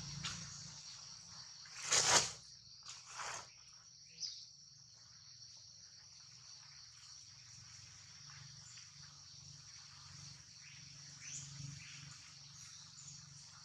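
Steady high-pitched drone of insects in the surrounding trees, with a loud brief noisy burst about two seconds in and two fainter ones soon after.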